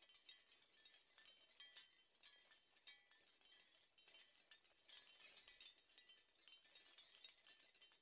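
Seashell wind chime, with the shells knocking together in quick, irregular clusters of faint, bright clinks and rattles.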